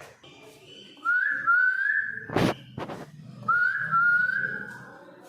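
Pet bird giving two long whistles, each rising and then held with a slight waver, with a sharp knock between them.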